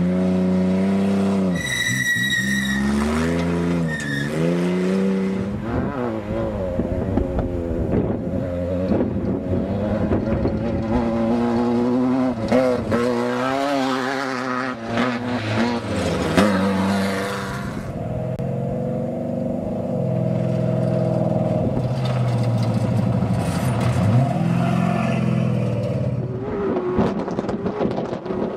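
Off-road desert race vehicle engines revving hard, the pitch rising and falling with the throttle, then running steadier through the second half.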